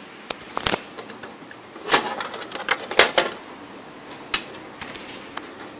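Sharp, irregular plastic clicks and knocks from the casing and parts of an HP LaserJet P1102 laser printer being handled, with the loudest clusters about two and three seconds in.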